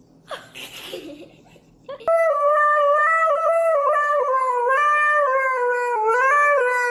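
A Siberian husky howling in long held notes that step up and down in pitch, starting suddenly about two seconds in.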